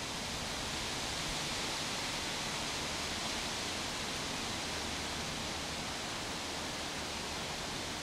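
Steady outdoor ambience: an even hiss, brightest in the upper range, that does not change and has no distinct calls or knocks in it.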